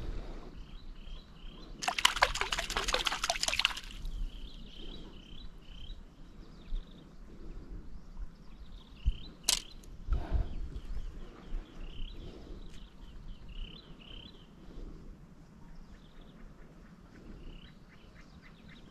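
Lake water trickling and lapping at a small boat, with a louder splashing trickle for about two seconds near the start and a single sharp click midway. Short faint high chirps repeat throughout.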